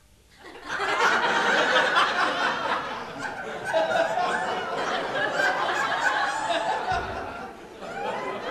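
Audience laughing, breaking out suddenly about half a second in and carrying on loudly, with a brief lull near the end before it picks up again.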